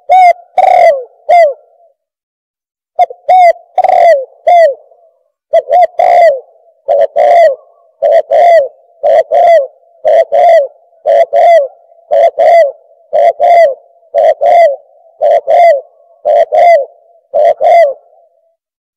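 Spotted dove cooing: short phrases of two or three low coos, repeated about once a second after two opening phrases, a recorded call played back to lure doves in.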